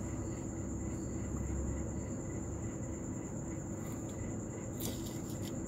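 Crickets trilling in one steady high tone over a low background rumble, with a light click near the end.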